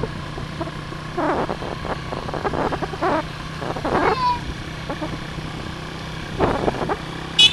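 Motorcycle engine running steadily under way, with irregular rushes of wind and road noise over it. A short high-pitched squeak comes at the very end.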